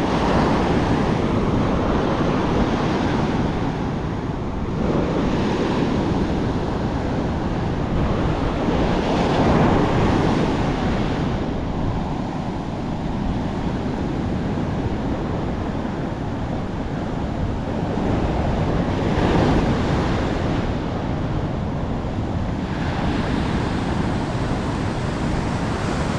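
Heavy surf breaking and washing up the beach, a steady rushing wash that swells and eases every few seconds, with wind buffeting the microphone.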